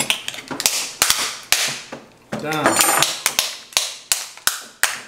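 Cooked stone crab claws being cracked by striking them with a knife: a run of sharp cracks, roughly two a second, with a brief bit of voice about halfway through.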